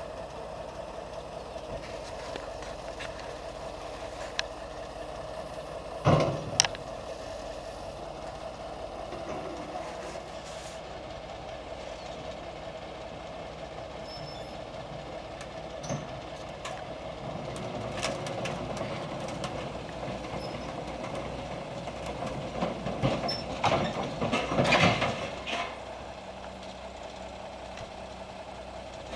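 Cat 320D hydraulic excavator running with a steady engine hum as it is driven off a transporter. Two sharp metal bangs come about six seconds in, and a louder stretch of clanking and rattling comes near the end.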